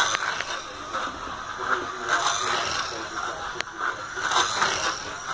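Scalextric Mini Cooper slot car running round the track: its small electric motor whirs and its pickup braids scrape along the rails. The sound swells a few times as the car passes close.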